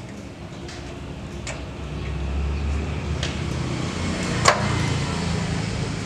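Light metal clicks and taps as a small engine's carburetor and gasket are handled and fitted by hand, the sharpest about four and a half seconds in, over a low background rumble that swells about two seconds in.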